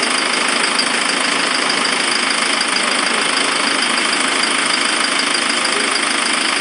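Diesel engine of a new Huaxia TE454 compact tractor idling steadily.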